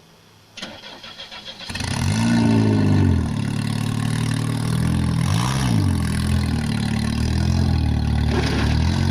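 Car engine cranked by its starter for about a second, catching about two seconds in, then revved up and down several times.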